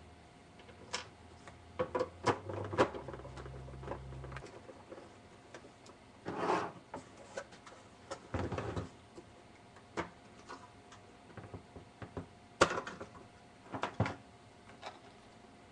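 Irregular clicks, taps and knocks of a small portable reel-to-reel recorder and its parts being handled and fitted, with two short scraping rustles about six and a half and eight and a half seconds in, over a faint steady hum.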